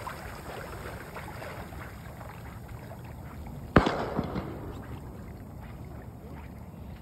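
Steady wind and water sloshing around people and a dog wading in shallow water. About four seconds in, a single sharp bang, the loudest sound, dies away over about half a second.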